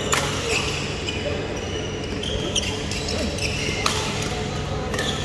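Badminton play: sharp smacks of rackets hitting the shuttlecock, one near the start and one about four seconds in, over a steady low hum.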